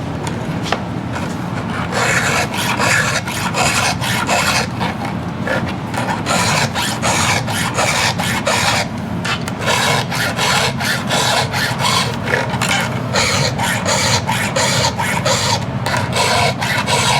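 Round hand file rasping across the cutters of a dull chainsaw chain, short, even strokes about two a second, starting about two seconds in, over a steady low hum.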